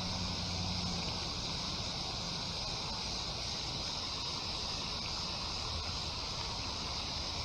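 Steady outdoor background noise: wind on the microphone with a constant high hiss, with no distinct events.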